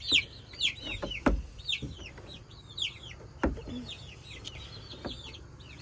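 Young silkie and bantam chickens peeping: many short, falling high chirps, over and over. Two knocks sound about a second in and about three and a half seconds in.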